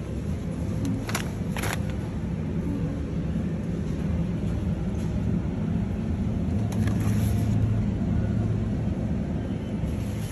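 Steady low rumble of supermarket background noise, with a few brief clicks or crinkles about a second in and again near the middle.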